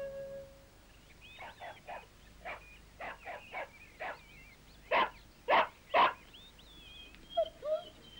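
A hound dog barking in a string of short barks, starting about a second and a half in. The three loudest barks come close together around the middle.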